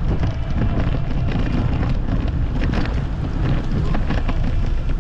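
Wind buffeting the microphone of a camera on a moving bicycle, a loud steady rumble with scattered light clicks and rattles through it.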